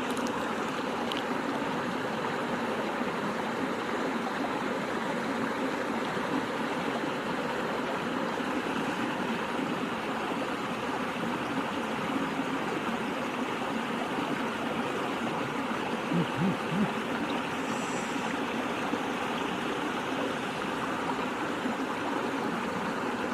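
Water of a small stream running steadily, with three quick low thumps about two-thirds of the way through.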